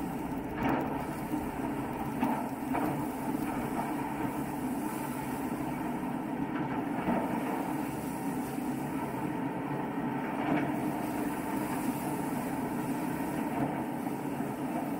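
Pilot launch running at speed: the steady drone of its engines mixed with water rushing along the hull, with a few brief louder splashes.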